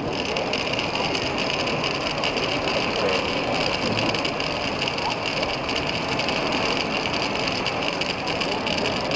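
Model conveyor loader running and pouring a steady stream of small lumpy bulk load into an open goods wagon, with an even, unbroken rattle and whine.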